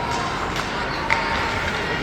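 Ice hockey rink ambience during play: a steady wash of skate and crowd noise, with a couple of faint knocks about halfway through.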